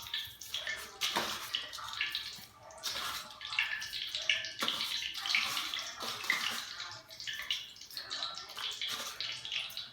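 Wet rustling and splashing of raw yam pieces being handled in a bowl while salt is added for seasoning.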